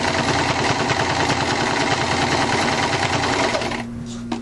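Singer electric sewing machine stitching at speed under the foot pedal, a rapid, even clatter of the needle mechanism, which stops about four seconds in. A quieter steady hum and a single click follow near the end.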